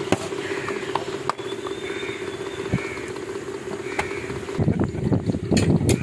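A steady mechanical hum like an idling engine, with hands patting and slapping tandoor roti dough: scattered light slaps, growing busier near the end. Faint bird chirps.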